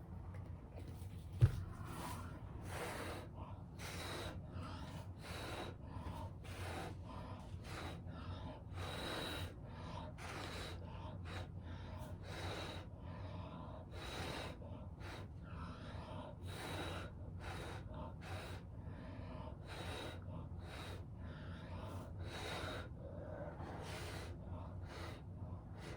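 A person blowing short, forceful puffs of breath through the mouth, about one a second, to push poured acrylic paint out across a canvas. A single sharp click sounds about a second and a half in.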